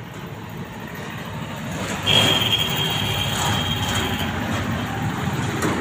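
An engine running with a steady low rumble that grows louder, stepping up about two seconds in, with a high steady whine over it for about two seconds.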